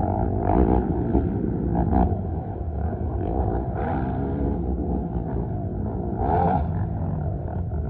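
Racing quad (ATV) engines revving up and down over the track's jumps, their pitch rising and falling, with one louder surge of revving about six and a half seconds in.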